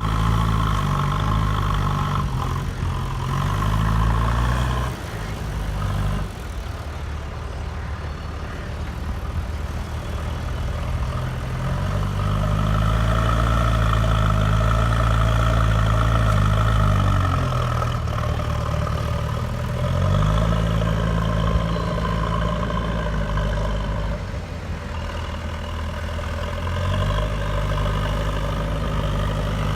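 JCB backhoe loader's diesel engine running, its revs climbing and dropping back several times as the machine works.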